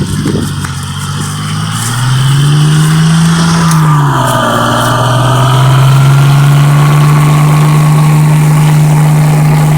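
Truck engine revving: it rises, dips briefly, then climbs again and holds at a steady high speed.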